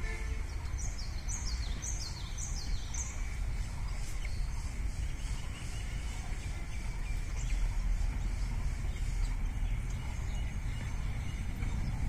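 A bird calling a quick series of about five falling chirps in the first few seconds, over a steady low rumble of outdoor background noise.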